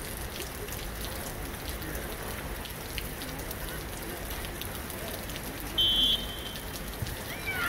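Referee's whistle blown once, a short shrill blast about six seconds in, signalling play to resume. Before it, a steady outdoor hiss with faint scattered ticks.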